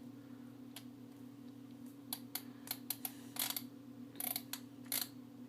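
Computer mouse clicking irregularly, about a dozen sharp clicks with a few quick doubles, over a steady low electrical hum.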